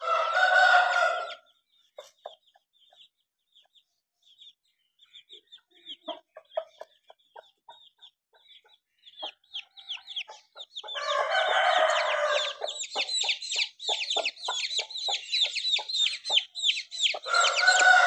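Chickens: a rooster crows three times, at the start, around the middle and near the end. Between the crows a hen clucks in short low calls, and through the second half her chicks peep in a rapid stream of high, falling chirps.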